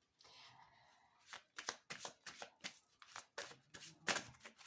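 A deck of tarot cards being shuffled by hand: a faint, quick run of short card flicks and slaps, starting about a second and a half in.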